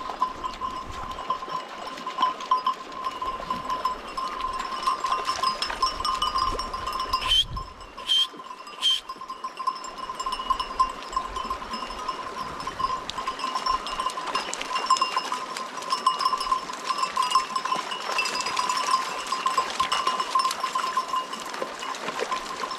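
Bells on a flock of sheep clinking and jangling without pause as the animals walk and drink, with a few sharp knocks about seven to nine seconds in.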